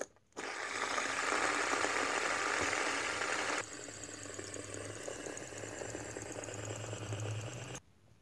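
Fidget spinners spinning, a steady mechanical whir of the bearings. It starts abruptly about half a second in, drops to a quieter whir with a low hum partway through, and cuts off shortly before the end.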